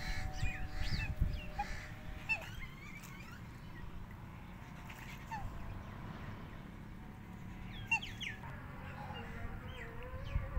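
Domestic fowl calling: scattered short, high chirping calls throughout, with held honking calls in the first couple of seconds.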